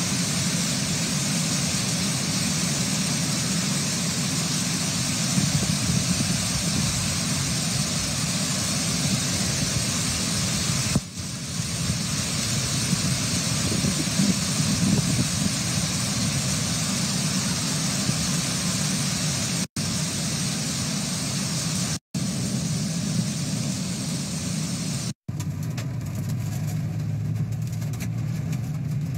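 Heavy hail falling: a dense, steady hiss of hailstones coming down, broken by a few abrupt cuts. In the last few seconds a car engine runs under the hail as a windscreen wiper sweeps the glass.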